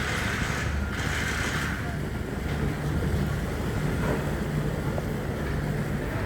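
An engine running steadily with a low, even hum, with a hiss over it in the first second and a half.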